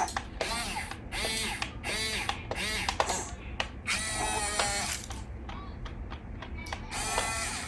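Small electric motors and plastic gearboxes of an RC toy excavator whining in short bursts that rise and fall in pitch, with ratcheting gear clicks, as its arm and bucket move.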